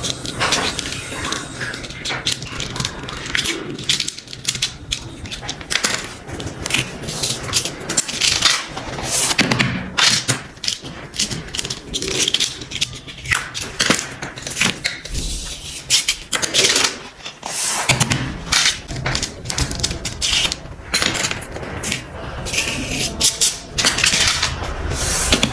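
Sand and small plastic toys being handled: a busy run of scraping, rattling and small clicks.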